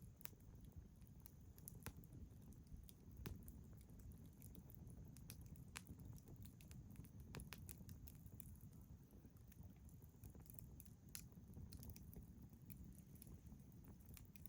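Faint campfire crackling: irregular sharp pops and snaps of burning firewood over a low rumble.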